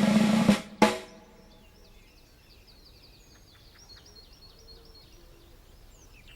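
A short, loud drum-roll-like rattling sting in the first second, then faint birdsong of quick high chirps.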